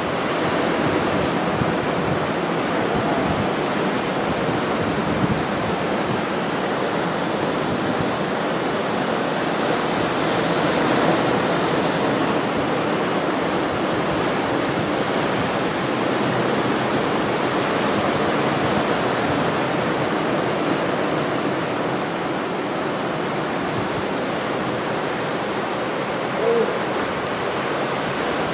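Ocean surf breaking after a storm, heard as a continuous, even wash of noise. Near the end comes one short pitched sound.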